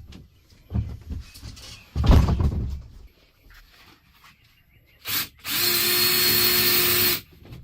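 Power drill run in a short blip, then held at a steady speed for about two seconds with an even whine, cutting off near the end. It comes after some handling noise and a heavy knock.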